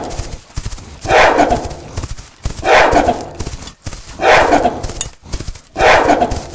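Cartoon gorilla sound effect: a loud animal grunt-call repeated five times, about every one and a half seconds.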